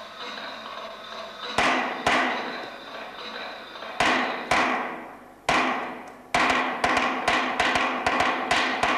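Small hammers striking the iron parts of a metal sculpture, each blow ringing out with a long metallic decay. Two pairs of strikes come first, then a quicker run of taps over the last few seconds.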